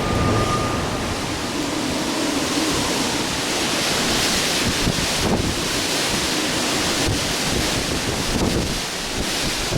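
Typhoon-force wind gusting hard over the microphone, with high waves on the lake washing and breaking.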